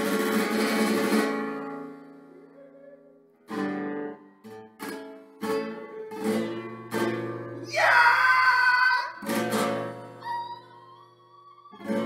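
Nylon-string classical guitar played slowly: a strummed chord rings and fades over the first couple of seconds, then separate plucked chords and single notes follow with gaps between them.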